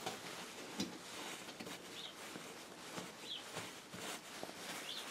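Faint rustling and soft knocks of hands handling the silica-fibre blanket wrapped over a gas forge. A small bird chirps briefly in the background, one short high chirp about every second and a half.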